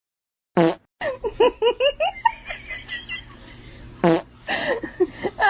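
A short, pitched fart-like blast about half a second in and another just past four seconds, with quick bursts of laughter between and after them.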